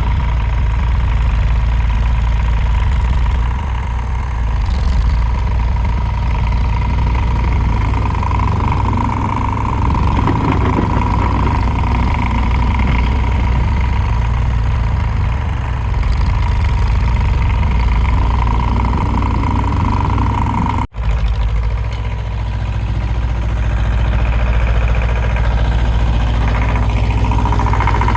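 Tractor engine running steadily with a deep, even rumble and a steady high whine over it; the sound drops out for an instant about two-thirds of the way through.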